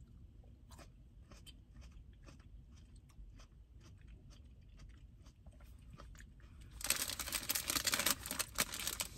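Faint chewing with small mouth clicks. About seven seconds in, loud, continuous crinkling starts as a clear plastic food bag is handled and pulled open.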